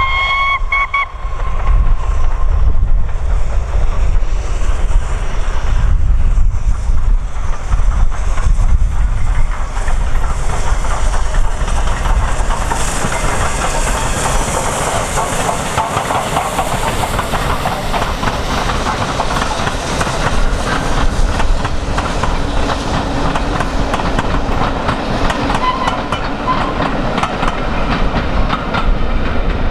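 LNER Peppercorn A1 4-6-2 steam locomotive 'Tornado' gives a short whistle, then works past with a heavy low rumble, wind buffeting the microphone. As the engine and its coaches pass, the rhythmic clickety-clack of wheels over rail joints builds, loudest about halfway through, and carries on as the train runs away.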